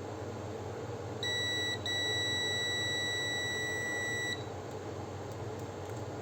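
Digital multimeter's continuity buzzer beeping as its probes test the modem's power switch: a short beep, then a steady beep of about two and a half seconds. The switch is apparently faulty.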